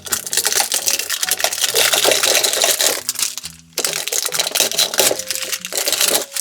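Rapid clattering and rustling of plastic toy pieces being handled, breaking off briefly about three and a half seconds in.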